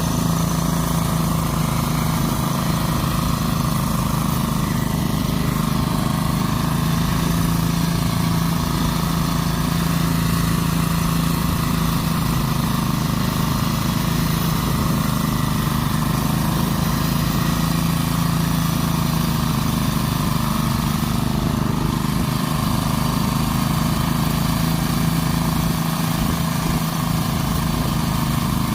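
A small petrol engine running steadily at a constant pitch for the whole stretch, with no rise or fall in speed.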